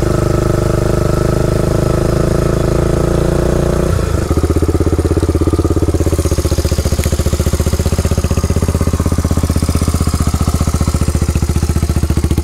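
Honda ATC 350X three-wheeler's single-cylinder four-stroke engine running steadily under way. About four seconds in it drops to a lower, even idle that carries on.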